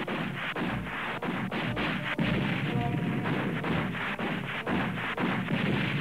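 Battle sound effect: a steady barrage of gunshots, several a second and irregular, mixed with deeper booms of artillery.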